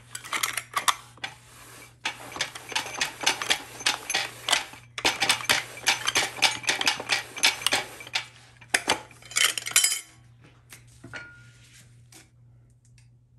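Direct drum of a GM TH400 automatic transmission being turned and rocked by hand to spline it onto the intermediate clutch frictions: a dense, irregular metallic clattering of steel parts that stops about ten seconds in, leaving a few light clicks as the drum seats.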